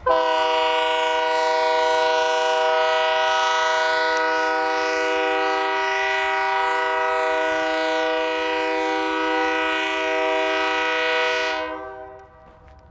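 Union Pacific locomotive air horn sounding one long, steady multi-note chord, held for about twelve seconds before cutting off near the end. It is being blown during locomotive testing in the yard.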